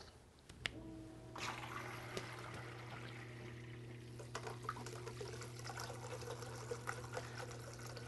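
Adagio wall-mounted indoor water fountain switched on: a click, then the pump's steady low hum, and from about a second and a half in water trickling and pouring down over the stone face, with scattered small drips and splashes.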